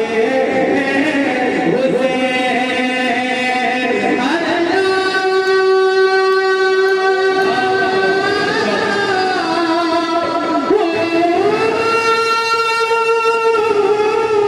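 A man singing a manqabat, an Urdu devotional praise poem for Imam Husain, into a stage microphone. He draws out long held notes with slow slides between them.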